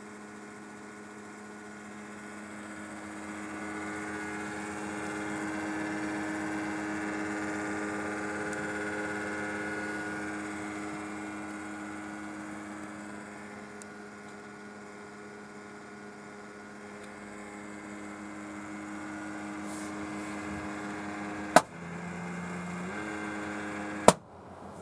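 Side-panel case fan of a home-built PC droning abnormally, a steady hum with several overtones that swells and fades twice. The owner puts the noise down to the worn-out fan resonating. Two sharp clicks come near the end, and after the first the drone's pitch briefly shifts.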